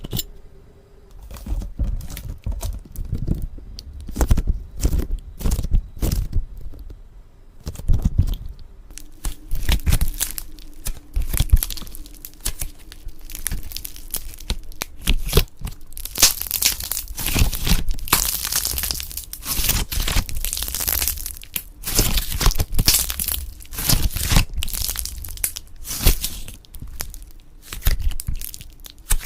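Slime being squeezed and pressed by hand, making sharp crackling clicks. The clicks are separate at first and turn dense and continuous from about nine seconds in.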